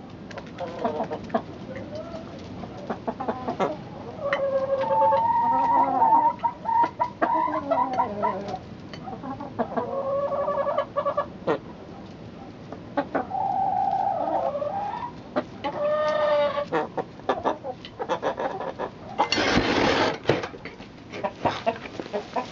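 A flock of domestic chickens clucking and calling, many birds at once, with short sharp clicks in between. About nineteen seconds in comes a loud, noisy burst lasting about a second.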